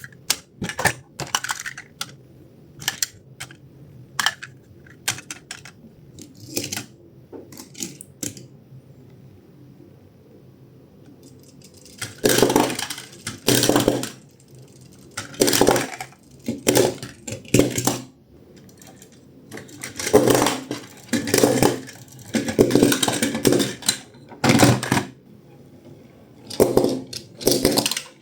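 Toys being handled: sharp clicks and clatter, scattered for the first several seconds, then after a short lull longer bursts of rattling and clattering from about twelve seconds in.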